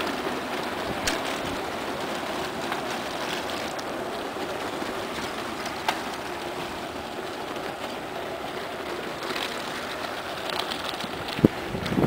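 Bicycle tyres rolling on a dirt road, with the bike's rattle: a steady rolling hiss with scattered small clicks and a sharp knock shortly before the end.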